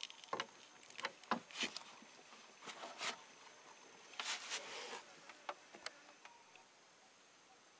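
A string of short, sharp clicks, knocks and rustles from close handling, busiest in the first five seconds. Under them runs a faint, steady trill of insects.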